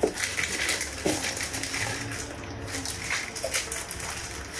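Light handling noises: a product's cardboard box and packaging rustling and clicking as it is handled.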